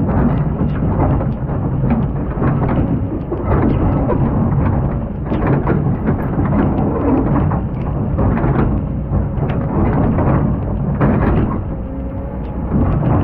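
Excavator's diesel engine running under load with a deep, continuous rumble, over which come frequent irregular knocks and scraping, the bucket working in sand and gravel.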